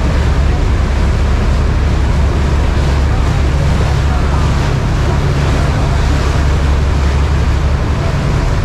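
Maid of the Mist tour boat under way: a steady low rumble, with rushing, churning river water and wind buffeting the microphone.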